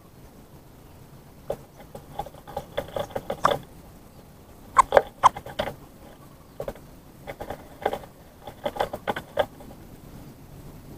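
Zebra dove (perkutut) giving its staccato cooing song: three bursts of quick, short, low notes with pauses between them.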